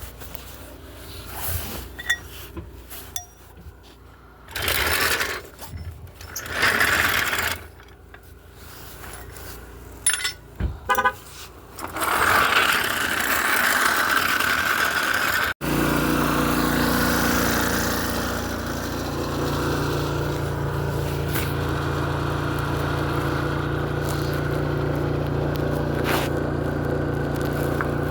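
Tire-change work: a few short bursts of tool noise and a quick rattle of clicks, then a vehicle engine running steadily through the second half.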